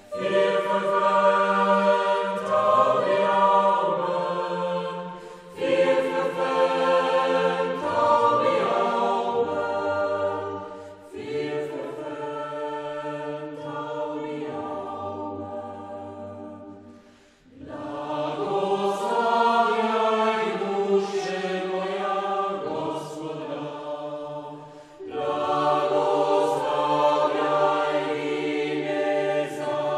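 Background music: a choir singing slow, held phrases, each about five or six seconds long, with short breaks between them.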